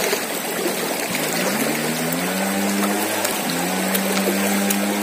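Fast-flowing, muddy river rushing past and swirling around a man wading waist-deep through it; the river is running strong after a night of rain. A steady low hum comes in about a second and a half in, rising in pitch at first, breaking off briefly and then holding steady.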